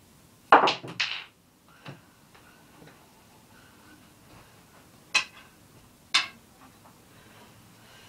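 Snooker balls clicking: two sharp clicks close together under a second in, a fainter knock about two seconds in, then two more sharp clicks about a second apart after five seconds.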